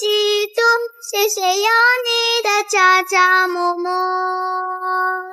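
A high, child-like voice singing a short melody with no accompaniment, ending on a long note held for about two seconds that then cuts off.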